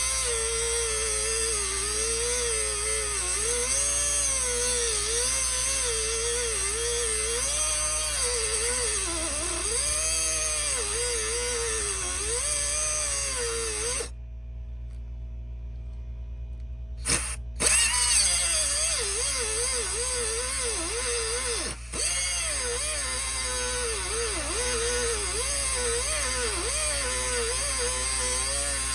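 Angle grinder with a cutting disc running and cutting metal; its motor pitch wavers up and down as the disc bites and eases off. It stops abruptly about halfway, gives a brief blip, then starts up and cuts again.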